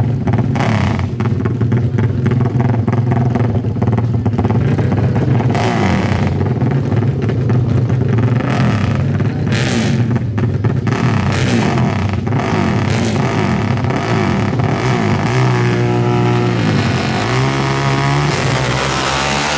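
Four-stroke 450 race ATV engines running loud and revving. Near the end one engine's pitch rises and falls in steps.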